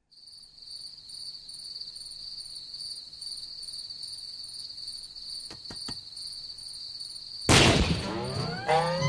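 Cartoon soundtrack: a steady high cricket-like insect trill, then about seven and a half seconds in a sudden loud burst of sound effects with sliding tones.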